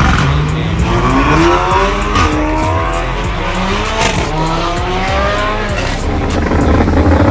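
A performance car's engine revving hard, its pitch climbing again and again as it accelerates, with a couple of sharp exhaust pops along the way.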